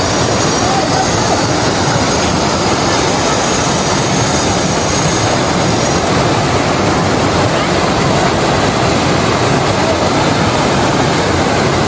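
A swollen, muddy mountain stream rushing over rocks: a loud, steady rush of water.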